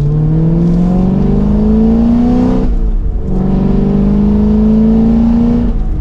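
6.2-litre V8 of a 2023 Chevrolet Camaro SS with an aftermarket louder exhaust, heard from inside the cabin, accelerating hard with its revs climbing steadily. The note breaks off briefly about three seconds in at an upshift of the manual gearbox, then climbs again and drops away near the end.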